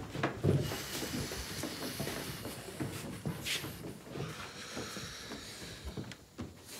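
Steady high hiss of background ambience, with a few soft knocks in the first second and a short burst of hiss about three and a half seconds in.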